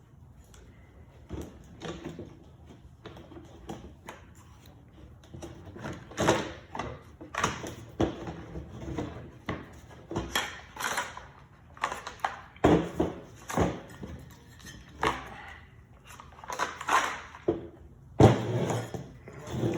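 Irregular clicks, taps and knocks of hard plastic chainsaw handle parts being handled as the throttle cable is worked free. The knocks are sparse at first and come much more often from about six seconds in.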